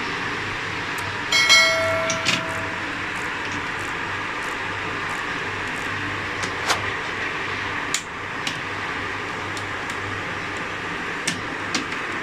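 Plastic clips of a laptop display bezel clicking into place as it is pressed around the lid, a handful of sharp clicks spread out over a steady background hiss. The loudest click, about a second and a half in, is followed by a brief ringing tone.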